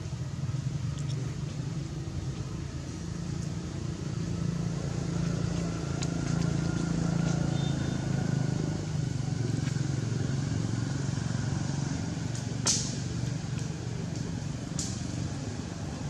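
Low, steady motor rumble, like a motorbike or other engine running at a distance, swelling for a few seconds in the middle. Two sharp clicks come near the end.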